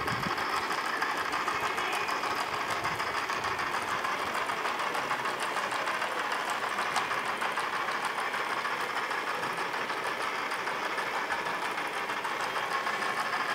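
Small toy motor driving a cube of interlocking plastic gears: a steady whir with rapid, continuous clicking of meshing plastic teeth.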